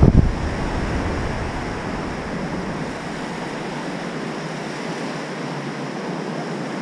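Small surf waves washing up a sandy beach, a steady hiss. Wind rumble on the microphone eases off about halfway through.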